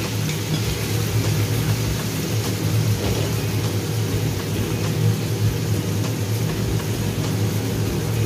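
Fish sizzling in hot oil in a wok, a steady hiss, over a constant low hum.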